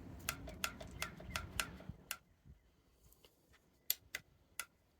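Sharp plastic clicks from handling the RC car's remote and trying its switch: a run of about four clicks a second, then after a pause three louder clicks.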